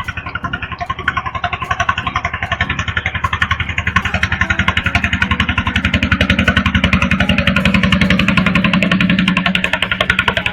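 Small engine running steadily, with a rapid, even pulsing beat.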